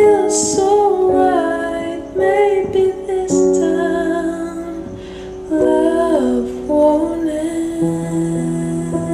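A slow, gentle song: a female voice singing a melody over soft instrumental accompaniment.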